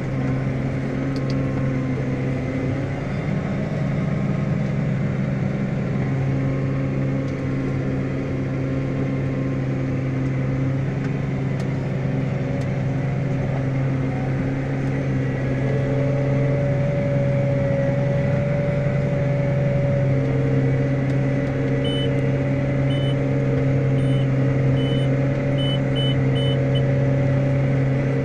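New Holland T7.245 tractor's six-cylinder diesel engine running steadily as it pulls an implement across the field, heard from inside the cab. A run of short, high electronic beeps sounds over the last few seconds.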